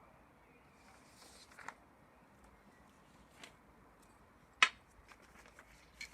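Faint steady hiss with a few scattered sharp clicks, the loudest about four and a half seconds in.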